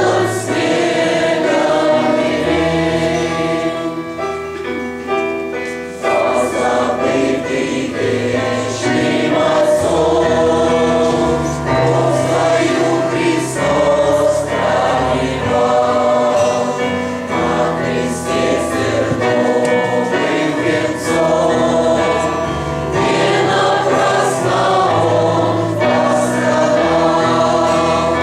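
Choir singing a Christian hymn with instrumental accompaniment.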